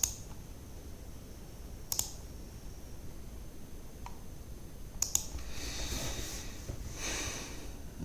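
Computer mouse clicking while wiring a circuit on screen: a few sharp single clicks a couple of seconds apart, with a quick double click about five seconds in. A soft rustling noise runs for a couple of seconds near the end.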